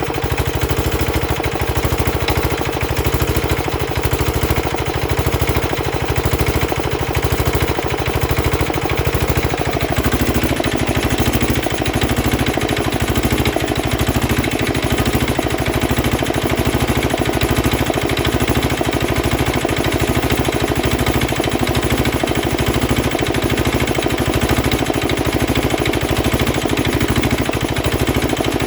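Petter AA1 single-cylinder diesel engine running steadily just after a cold start, driving an air compressor by belts, with an even rapid beat. The tone of the running shifts about ten seconds in.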